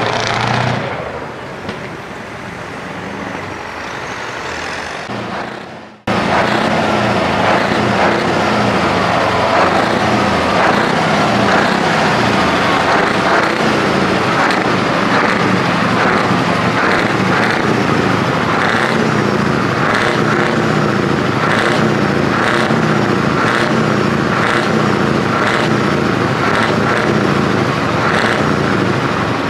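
A truck engine pulling away and fading, then after a sudden cut about six seconds in, a Scania truck's diesel engine running steadily close by.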